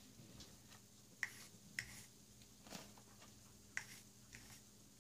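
A small plastic palette knife clicking against a small cup as wet acrylic paint is scraped off and wiped into it: about five short, sharp clicks at uneven intervals.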